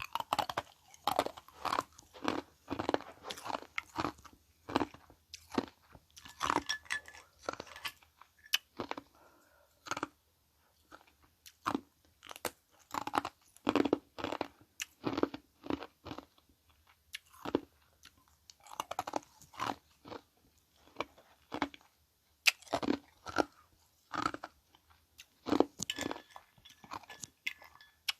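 Close-miked chewing of ice: a run of sharp, irregular crunches in quick clusters, separated by short pauses.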